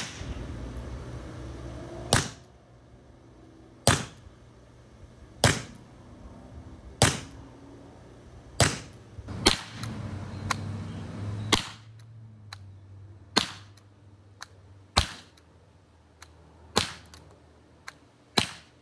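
A Mercury Rise Torpedo Revolver (TR50), a CO2-powered .50-calibre launcher, firing darts shot after shot. About a dozen sharp pops come roughly one every one and a half to two seconds, with a few fainter knocks between them.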